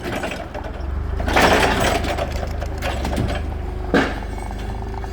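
An engine running steadily, with a loud rush of noise about a second and a half in and a single knock near four seconds.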